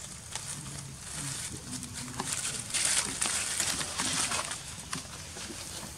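Dry leaf litter crunching and rustling under footsteps, in uneven crackles that are loudest and densest around the middle.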